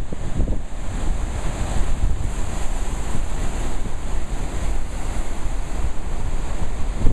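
Whitewater rushing and churning below a dam spillway, a steady loud wash of water noise. A low rumble of wind buffets the microphone.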